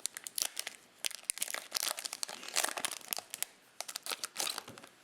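Foil wrapper of a Topps Chrome trading card pack crinkling and crackling as it is torn open and handled, in dense irregular bursts.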